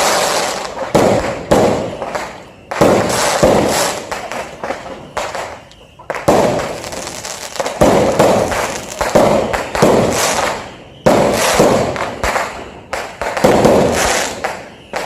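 New Year's fireworks going off in quick succession: repeated sharp bangs, each trailing off into crackling, every second or two with a few short lulls.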